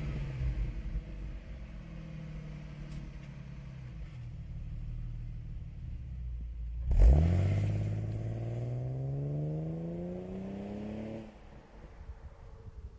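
Ford BA Falcon XR6's naturally aspirated inline six idling at the exhaust, its revs settling after a blip. About seven seconds in it takes off with a sudden loud burst, and the exhaust note climbs steadily in pitch as the car accelerates away, dropping off about four seconds later.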